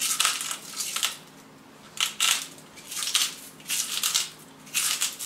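Hand-twisted salt grinder crunching salt crystals in short grinding bursts, about five of them, with a longer pause after the first.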